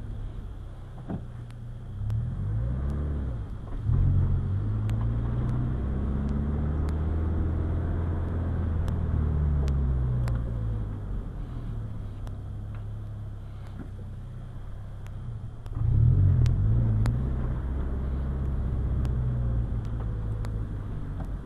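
Scion FR-S's 2.0-litre flat-four engine heard from inside the cabin as the car drives off slowly, pitch rising and dropping with the throttle. It picks up sharply and accelerates again about sixteen seconds in.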